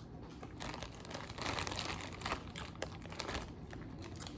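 Soft crinkling and crackling from handling food while eating shellfish, with a few sharp clicks.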